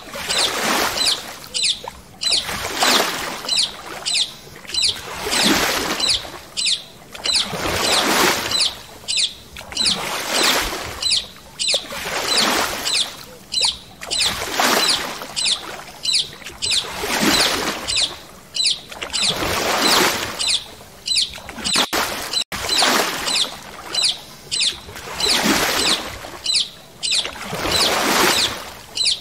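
Paddle strokes from a stand-up paddle board: the blade splashing and pulling through the water in a steady rhythm, about one stroke every one and a half seconds.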